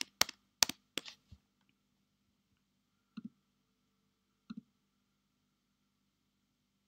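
Clicks at a computer: a quick run of four or five sharp key or button clicks in the first second and a half, then two single mouse clicks about three and four and a half seconds in, over a faint steady low hum.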